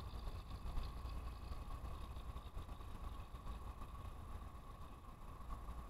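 Wind buffeting the microphone in a low rumble, over a steady hum of road traffic.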